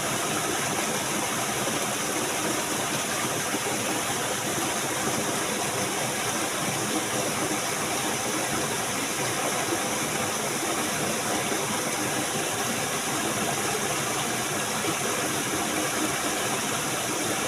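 Steady rush of flowing water, an even unbroken hiss with no distinct events.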